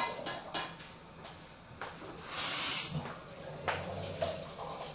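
Light clicks and knocks of kitchen utensils being handled at a counter, with one brief hiss a little over two seconds in.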